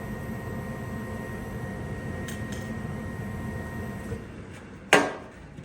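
A gas furnace runs with a steady whirring hum that winds down near the end. About five seconds in there is a single sharp metallic clack, with a softer knock just after.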